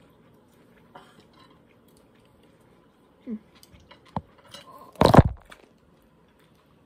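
Faint chewing and small clicks while eating, then about five seconds in a loud, brief rustle and knock of the phone being grabbed and turned.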